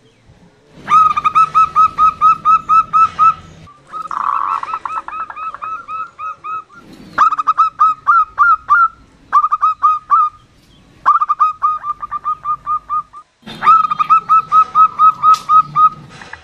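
Female zebra dove (perkutut) calling in runs of rapid staccato notes, about five or six a second, six runs in all with short pauses between them.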